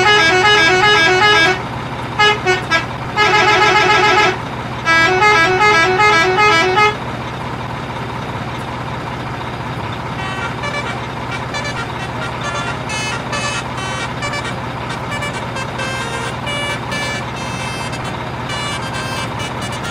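A multi-tone musical truck horn playing quick stepping toots in three bursts over the first seven seconds, above a steady engine hum. The hum carries on alone afterwards, with faint rapid clicking in the later part.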